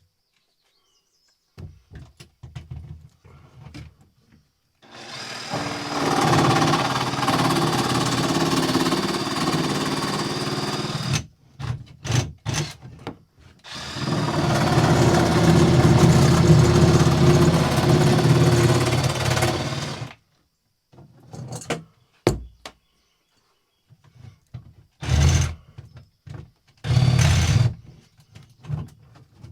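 Electric drill boring holes through a fiberglass boat hull: two long steady runs of about six seconds each, then two short bursts near the end.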